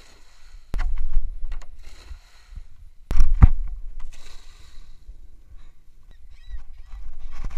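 Cast net hitting calm water with a hissing splash, three times, the loudest about three seconds in, with wind rumbling on the microphone.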